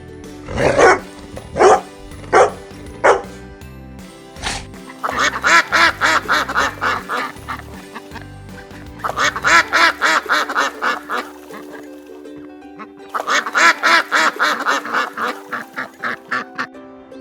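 A duck quacking in three quick runs of rapid quacks, each lasting a couple of seconds, after a few short separate calls at the start. Background music with a held chord plays underneath.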